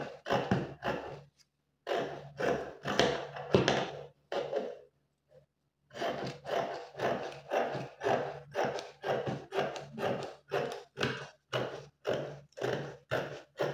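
Scissors cutting through shiny satin-like fabric along a paper pattern, snipping steadily at about two strokes a second, with a short pause about halfway through.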